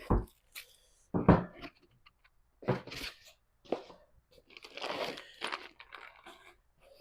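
Packaging being torn open and crumpled while unboxing a kit, in irregular bursts of crunching and tearing, the loudest about a second in.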